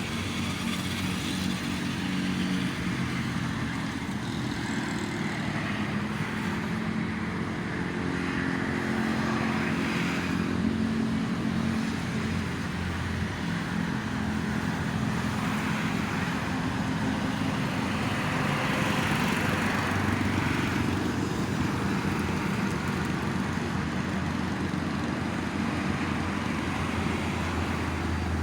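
Steady road traffic from a toll road: a continuous low engine hum with the noise of passing vehicles swelling and easing every several seconds.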